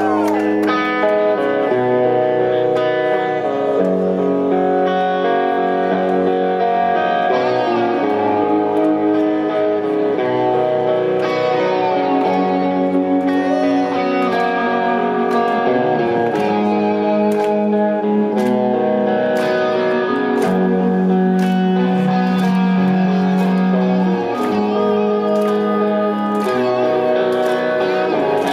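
Live electric guitar picking a slow chord progression note by note, each note left ringing. From about eight seconds in, a cymbal ticks steadily alongside it.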